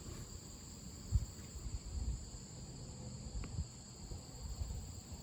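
Crickets chirring steadily in two high, even bands, over a low rumble with a soft knock about a second in.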